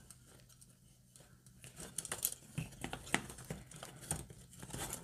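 Small irregular plastic clicks and rustles of hands handling computer cooling-fan wires and cable ties, getting busier about two seconds in.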